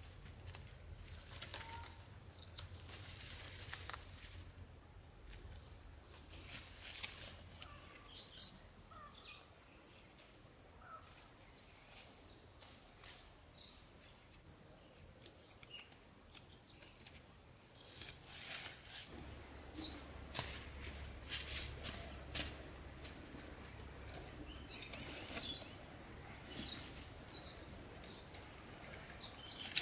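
Insects droning outdoors, a steady high-pitched tone that runs on without a break. It jumps suddenly louder about two-thirds of the way in, with a few light ticks and faint chirps around it.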